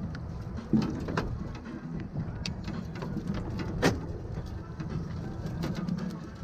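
Steady low rumble of river water and wind around a drift boat, with scattered sharp knocks and clicks as a landing net is handled aboard; the loudest knock comes about four seconds in.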